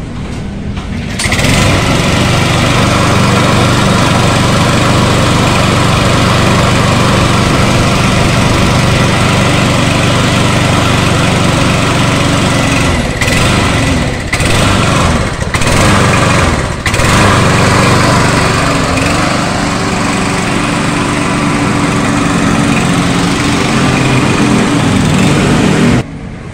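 Stihl RM 248 push lawn mower's four-stroke petrol engine running steadily at full speed, with a few brief dips midway. It cuts off suddenly near the end, as the engine does when the control bar is let go.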